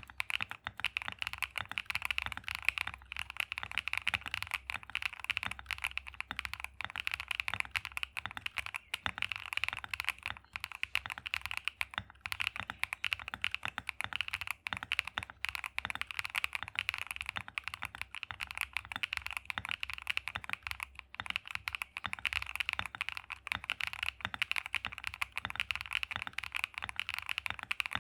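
Akko PC75B mechanical keyboard with Akko Cream Yellow Pro linear switches typed on quickly and without pause: a dense, steady stream of key clacks.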